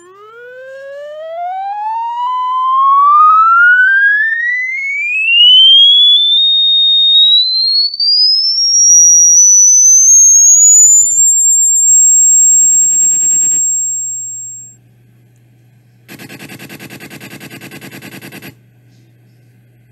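Electronic rodent-repellent tone sweeping smoothly upward in pitch from low to a high whistle over about eleven seconds, holding there for a few seconds and then cutting off. A much quieter, rapidly pulsing electronic buzz follows, loudest for a couple of seconds near the end.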